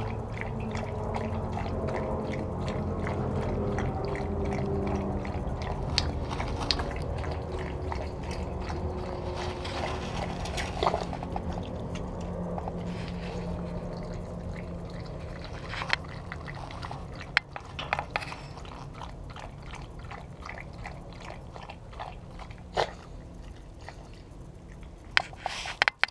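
Shiba Inu lapping water from a stainless steel bowl: a quick, continuous run of wet laps over a steady low hum. In the second half the lapping thins out into a few separate sharp clicks.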